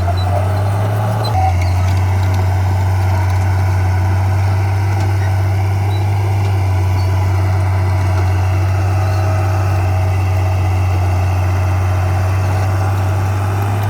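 Heavy-equipment diesel engine running steadily at a low, even note that shifts slightly about a second in.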